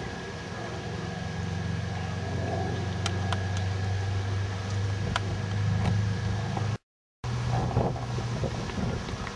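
A steady low engine hum that shifts a little in pitch, with a few faint clicks. The sound cuts out completely for about half a second about seven seconds in.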